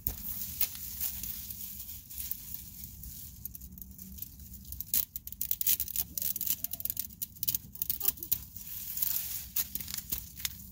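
Chinese celery stalks being cut with a knife and leafy bunches pulled from a planter: irregular crisp snaps, crackles and leaf rustling, thicker from about halfway through.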